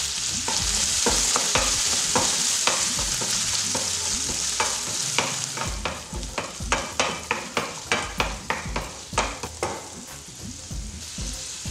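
Boiled chickpeas sizzling in hot oil in a nonstick pan while a wooden spatula stirs them, knocking and scraping against the pan. The sizzle fades after about six seconds, leaving mostly the spatula's quick knocks.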